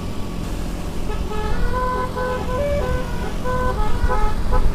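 Basuri telolet horn playing a quick melody of short stepped notes, starting about a second in, over a low engine rumble.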